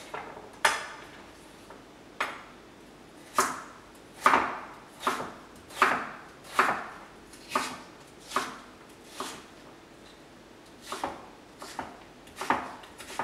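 Kitchen knife chopping through daikon radish onto a wooden cutting board: a string of sharp chops, roughly one a second, with a short pause about ten seconds in.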